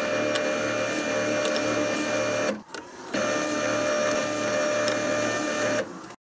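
Benchtop drill press running and drilling holes in a wooden strip: a steady motor hum with a low throb about twice a second. The sound cuts out briefly about two and a half seconds in, then resumes and stops just before the end.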